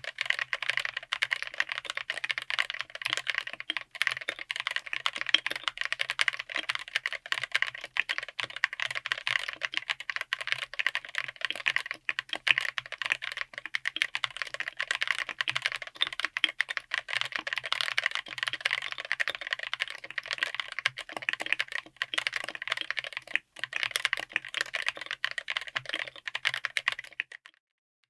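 Fast typing on a 60% mechanical keyboard with Wuque Studio WS Quartz linear switches, mounted on an FR4 plate in an aluminium case. It is a dense, continuous run of keystroke clacks that stops near the end.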